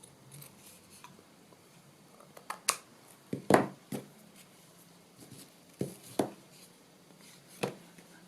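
Scissors snipping the too-long tied ends on a craft tag: a few sharp clicks, several in quick pairs, the loudest about three and a half seconds in.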